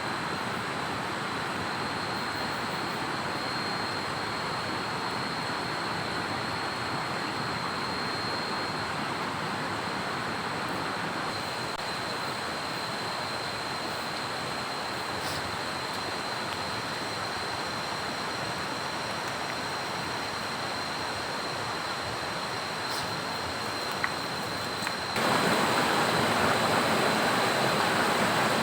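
Steady rushing noise of heavy rain and running water, with a thin steady high tone above it. About 25 seconds in it jumps abruptly louder and brighter.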